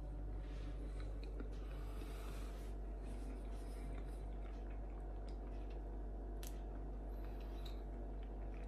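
A person quietly chewing a mouthful of soft sponge cake, with a few faint mouth clicks, over a steady low hum.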